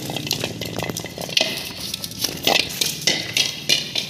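A Rottweiler scrambling after a ball on a concrete floor: irregular scraping and clicking of its claws, with metallic clinking from its chain collar.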